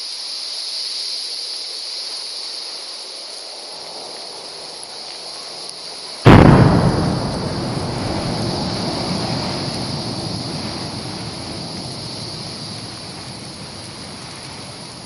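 Steady hiss, then about six seconds in a sudden loud boom as the volcanic fissure eruption breaks out, trailing off into a long, slowly fading rumble.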